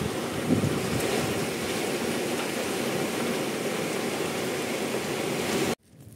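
Heavy rain pouring down steadily, an even hiss that cuts off suddenly near the end.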